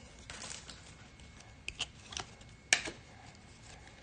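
Glossy chromium trading cards being slid and flipped one over another in the hands: a few short, soft clicks and slides, the sharpest a little under three seconds in.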